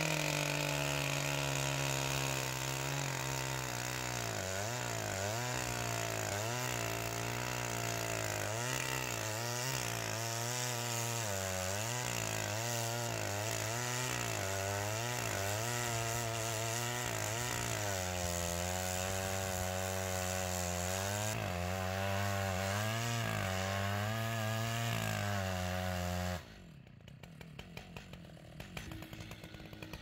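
Large Stihl chainsaw running at full throttle as it bucks through a big white pine log, its pitch wavering as the chain loads up in the cut. The saw cuts off suddenly near the end, followed by a few light knocks as a plastic wedge is tapped into the kerf.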